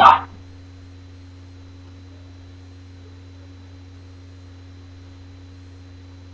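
Steady low electrical hum with a fainter higher tone over it, like mains hum picked up by a webcam microphone. A brief loud burst at the very start.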